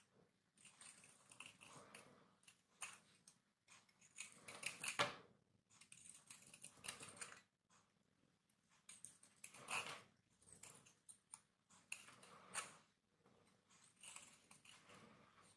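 Small knife blade shaving and scraping a hard, dry bar of Lux soap, the crumbly soap breaking off in faint, irregular crisp scrapes. Louder strokes come about four to five seconds in and again near ten seconds.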